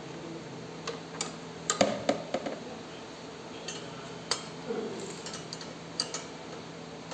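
Steel spanners clinking on a bolt and steel shaft while a locking-sleeve bolt is tightened by hand. Scattered sharp metal clicks, busiest about two seconds in.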